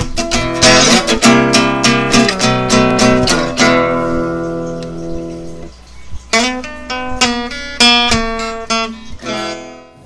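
Intro music: strummed acoustic guitar chords in a steady rhythm, with one chord left ringing out about halfway through before the strumming picks up again and fades out near the end.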